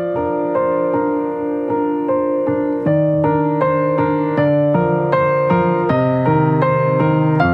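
Background music: piano playing a steady run of single struck notes over low held bass notes.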